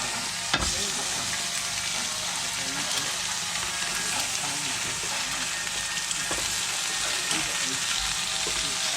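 Bacon sizzling on a barbecue hotplate, a steady frying hiss, with one sharp tap about half a second in.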